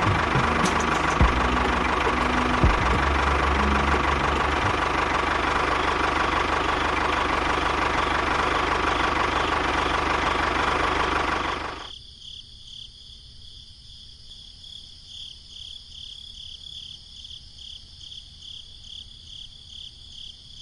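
Engine running, noisy and knocking, until it cuts off about twelve seconds in; after that only a faint high whine pulsing evenly is left.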